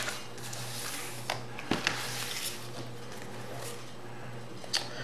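Trading cards being gathered into a stack and set aside by hand: faint sliding and shuffling with a few light taps.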